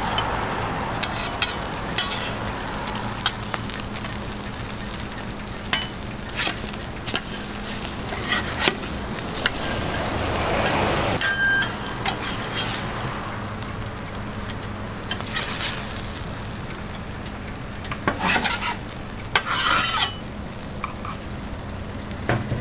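Egg omelette with pepperoni sizzling on a flat steel griddle, with scattered sharp clicks and scrapes of a metal spatula and spoon against the griddle, a few louder ones near the end. A faint low steady hum runs underneath.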